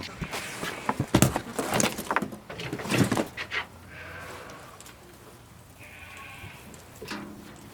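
Footsteps and a few knocks for the first few seconds, then goats and sheep bleating, with a couple of drawn-out calls in the second half.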